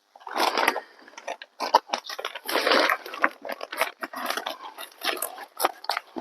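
R13 fiberglass insulation batts being handled and pressed into place, giving an irregular run of rustling and crinkling bursts.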